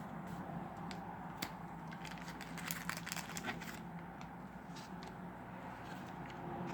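Faint crinkling of plastic and light clicks as trading cards are handled, most of them bunched together through the middle. This is the rustle of cards being slid into plastic card sleeves or handled with a foil booster wrapper.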